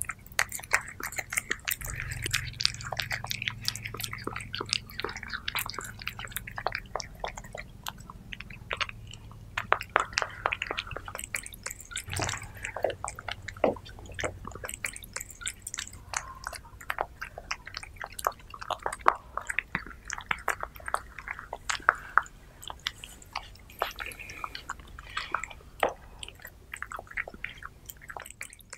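Two cats eating raw minced meat, close-miked: a continuous run of wet chewing smacks and clicks.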